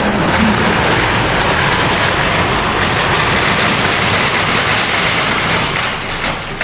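A bucketful of packaged snacks pouring out in a dense, steady rustle of crinkling wrappers, tapering off near the end.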